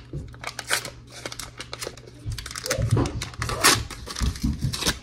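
Paper butter wrapper crinkling and tearing as it is peeled off a stick of butter, a run of small crackles.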